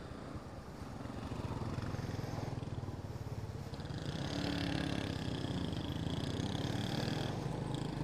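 Motorcycle engine running while riding, a steady low hum that grows gradually louder.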